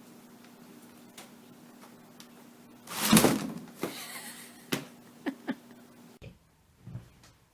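A loud thump and crash about three seconds in, then a few lighter knocks and clatters: a cat landing hard after a failed jump. A faint steady hum runs underneath and stops shortly before the end.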